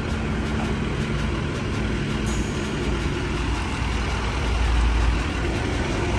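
Motor vehicle running with a steady low rumble that swells briefly about five seconds in.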